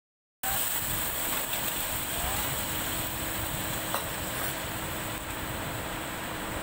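Food sizzling in a pan on the stove, a steady hiss that cuts in just after a brief dropout, with a faint clink about four seconds in.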